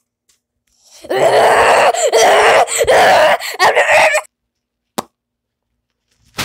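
A voice making a long, rough groaning noise for about three seconds, with a few brief breaks. It serves as a mouth-made effect for the pile of items turning into a toy. A single sharp click follows about five seconds in.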